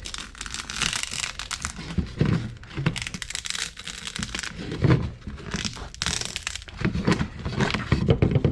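Plastic vacuum-bagging film and layup materials crinkling, crackling and tearing in irregular bursts as they are peeled and pulled off a carbon fiber part in its mold.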